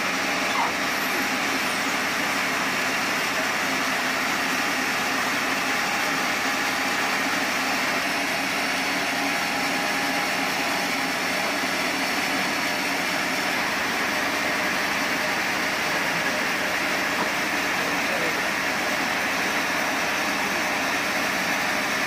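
Sawmill machinery running steadily, a constant motor noise with no cutting or change in speed.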